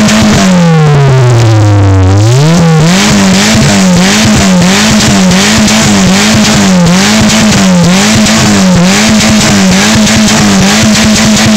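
First-generation Renault Clio engine revving loud and high: the revs hold, fall away over about two seconds and climb again, then dip and pick back up in a steady rhythm about one and a half times a second as the throttle is blipped.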